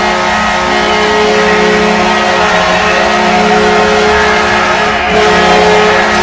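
Hockey arena goal horn sounding a long, steady, multi-toned blast over a noisy background. It breaks briefly about five seconds in, then sounds again.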